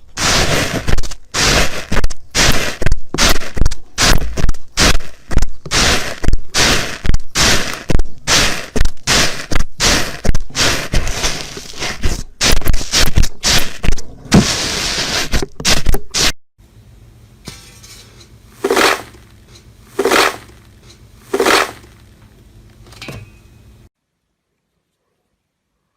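Loud, rapid scraping strokes, about two a second, in a long run; after a cut, four softer strokes follow, then the sound stops.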